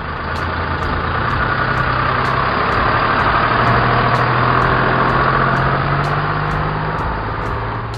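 Truck engine sound effect: a heavy engine running steadily as a dump truck drives past.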